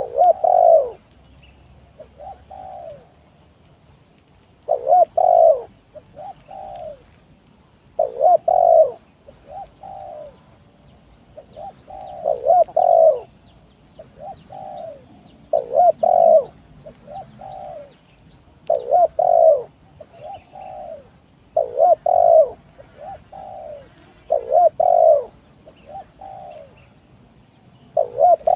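Spotted dove (tekukur) cooing without pause: a loud two-note coo followed by softer coos, the phrase repeating about every three seconds, as a lure call.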